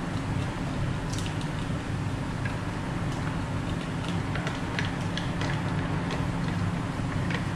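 Cutlery cutting and scraping through syrup-covered hotcakes in a cardboard takeout box, giving small scattered clicks and scrapes over a steady low hum.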